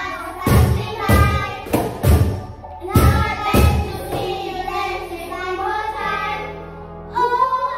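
Cajons struck with the hand, giving a few deep bass thumps in a beat over voices singing a pop melody; the thumps stop about four seconds in, leaving only the singing.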